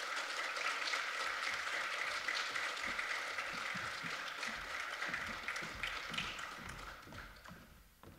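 Concert audience applauding, a dense, steady clapping that thins out and dies away over the last couple of seconds.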